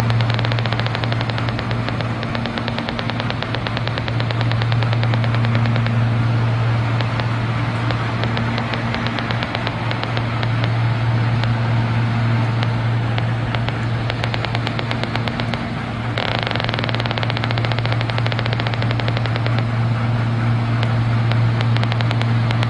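Gigahertz Solutions HF35C RF analyser's speaker crackling with rapid, dense clicks. This Geiger-counter-style audio signal rises with the strength of pulsed microwave radiation, here from an Elster A3 Alpha smart meter's mesh-network transmissions. The crackle turns brighter and denser about two-thirds of the way in, over a steady low hum.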